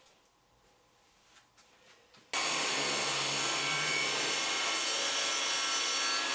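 Near silence, then about two seconds in the steady noise of a Mafell table saw cutting a board comes in suddenly, with a shop vac drawing off the dust through its hose.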